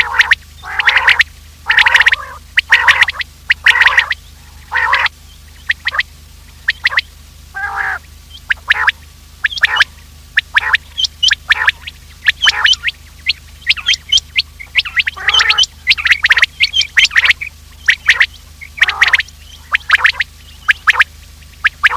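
Quail calling over and over in short, sharp notes, a recorded lure call used to draw quail in, with a steady low hum underneath.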